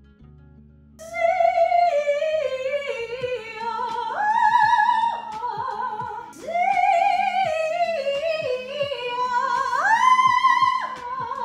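A woman's trained singing voice doing vocal warm-up exercises, starting about a second in. Each phrase steps down through a run of notes with vibrato, then slides up to a high note held briefly, and the pattern repeats.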